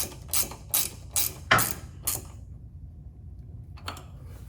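Ratchet wrench clicking in quick, even strokes, about three a second, as a sway-bar link bolt is tightened. The strokes stop about two seconds in, and one more click follows near the end.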